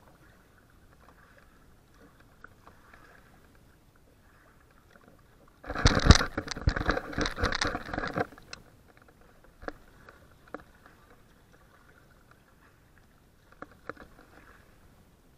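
Kayak paddling: faint water patter and a few light knocks, broken partway through by a loud rattling scrape lasting about two and a half seconds.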